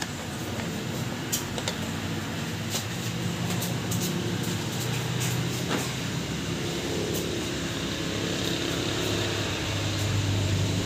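A steady low mechanical hum from a running motor, its droning tone shifting in pitch a couple of times.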